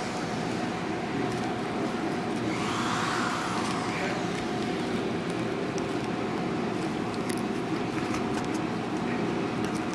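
Steady machine noise with a constant mid-pitched whine running under it; a brief swish rises and falls about three seconds in.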